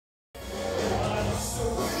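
Background music, starting suddenly about a third of a second in.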